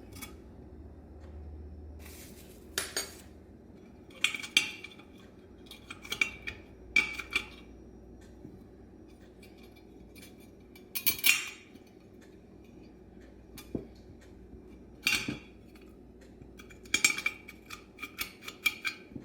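Metal hand tools scraping and clinking on an old Bendix Stromberg WWC carburetor during teardown, in about a dozen short, irregular bursts, some with a faint ringing note. The old gasket and its residue are being worked off the carburetor body.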